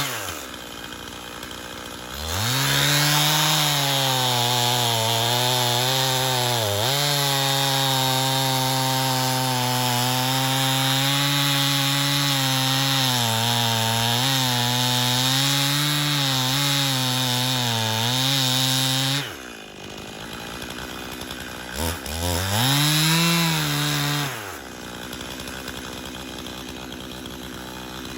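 Stihl chainsaw bucking a felled red oak: it idles, revs up to full throttle about two seconds in and cuts for around 17 seconds, the pitch dipping and wavering as the chain bites the wood, then drops back to idle. A short rev follows a few seconds later before it settles at idle again.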